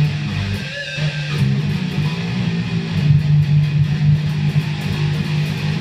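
Electric guitar played loud and continuously, a heavy riff sitting on low notes, as a song part is being worked out.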